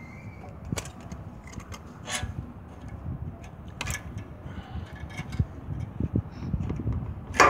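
A handful of sharp metal clicks and knocks as a small generator carburetor is worked off its mounting studs, over a low rumble. The loudest knock comes near the end.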